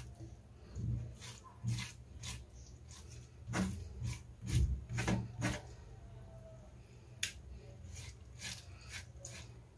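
Kitchen knife blade scraping a turned-inside-out pork small intestine along a wooden cutting board, cleaning it for sausage casing: a dozen or so short, irregular scraping strokes.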